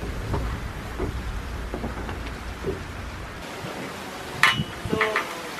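Outdoor wind buffeting the microphone, a low rumble under a steady hiss that drops away about three and a half seconds in. A couple of brief sharp sounds come near the end.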